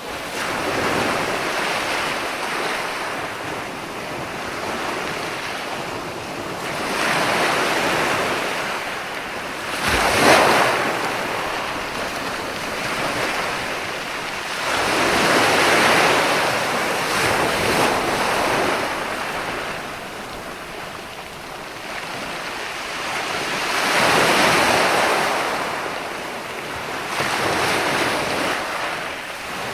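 Ocean surf breaking and washing up, swelling and fading every several seconds, with one sharper, louder crash about ten seconds in.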